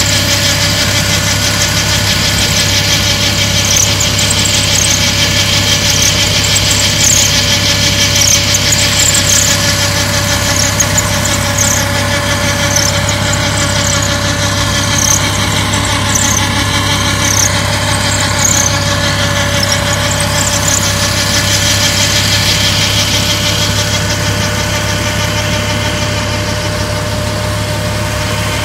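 Farm tractor engine running steadily, with short high-pitched squeaks coming and going over it through the first two-thirds.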